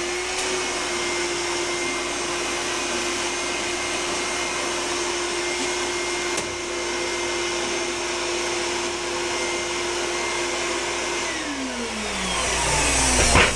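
Vacuum cleaner running steadily with a high whine, its hose sucking dust out of the vents of an electronic air cleaner. Near the end it is switched off and the whine falls away as the motor winds down.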